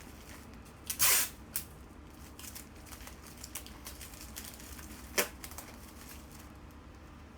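Craft materials being handled: a loud short rip or crinkle about a second in and another just after five seconds, with scattered small rustles and ticks between.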